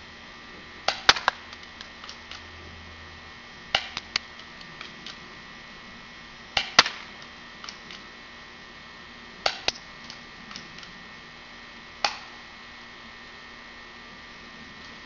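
All-plastic UHC 1911 spring airsoft pistol being cocked and fired with 0.12 g BBs. It gives sharp plastic snaps in pairs or small clusters, one group about every three seconds, five in all, with fainter clicks of handling in between.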